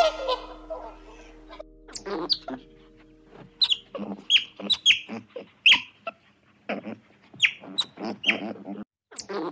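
A brief honking call at the very start, then a raccoon giving a long run of short, high-pitched squeaky chirps, many sliding down in pitch, several a second.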